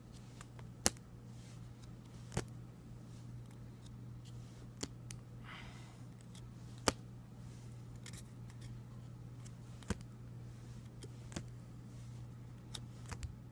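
Trading cards being handled and flipped through: scattered sharp clicks and snaps a second or two apart, with a soft rustle about halfway through, over a steady low hum.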